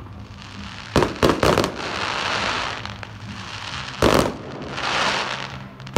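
Fireworks: three sharp bangs in quick succession about a second in, then a long crackling hiss as the stars fizzle, and another bang about four seconds in followed by more crackling.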